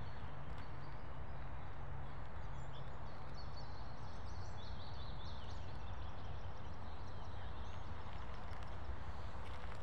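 Small woodland birds chirping and singing, short high calls that are thickest in the middle, over a steady rushing background noise.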